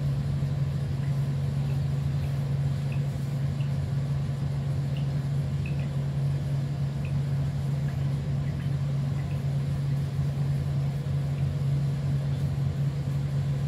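Steady low mechanical hum, unchanging throughout, with a few faint light ticks over it.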